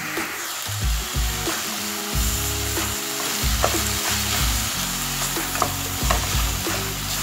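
Diced pork, onion and red pepper sizzling in oil over high heat, stirred with a wooden spoon that clicks against the pan now and then.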